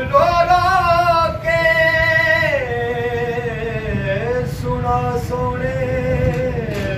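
A man singing a naat, a devotional poem in praise of the Prophet, unaccompanied, drawing out long held notes. About two and a half seconds in, his voice slides down to a lower note and holds it. A low rumble of room noise runs underneath.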